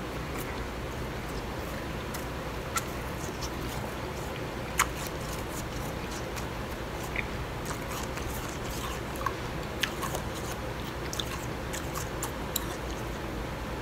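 Crisp crunching of blended bag ice being chewed, as short sharp cracks scattered over a steady hiss, the loudest about five seconds in and smaller ones coming more often later on.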